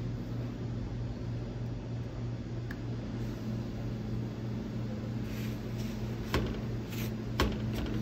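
Steady low mechanical hum of commercial kitchen equipment, with two light sharp clicks near the end.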